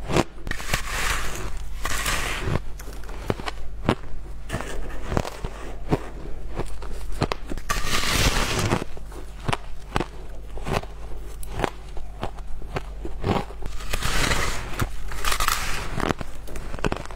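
Shaved ice crunching and crackling as it is bitten and chewed close to the microphone, a run of sharp cracks, with louder crunching bursts about a second in, around the middle and near the end as fresh chunks are bitten off a compacted block of colourful shaved ice.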